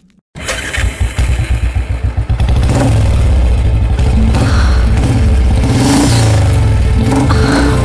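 Motor scooter engine revving loudly, pulsing at first and then running at a steady high pitch.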